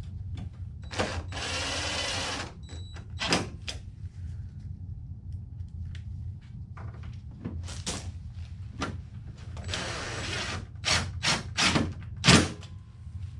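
Cordless drill/driver running in short bursts, driving the new headlight's mounting bolts in, about a second in and again around ten seconds. Clicks and knocks of the headlight being handled come in between, the loudest near the end, over a low steady hum.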